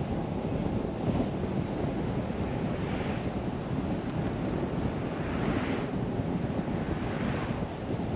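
Steady road and wind noise of a car driving, with a higher hiss that swells and fades about every two seconds.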